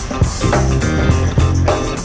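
Background music: a rock song with electric guitar, bass and drums.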